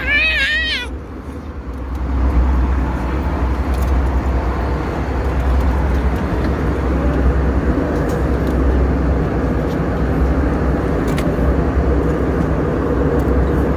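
Steady low rumble of engine and airflow noise inside an airliner cabin, with a faint steady hum above it. The rumble briefly drops away about a second in, then holds steady.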